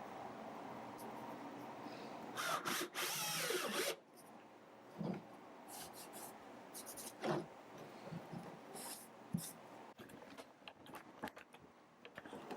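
Power drill running while drilling and driving screws into 2x4 timber, getting louder for about a second and a half near the four-second mark and then stopping. A few separate knocks of wood and tools being handled follow.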